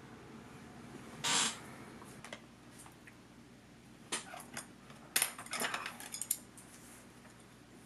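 Tableware being set on a table: a short scrape about a second in, then a scatter of small clicks and clinks of dishes and chopsticks.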